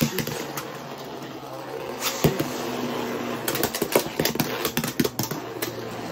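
Two Beyblade X spinning tops, Leon Claw and Drawn Dagger, are ripped from their launchers into a plastic stadium. A burst of launch noise comes at the start, then the tops whir steadily with many sharp clacks as they strike each other and the stadium, the hardest about two seconds in.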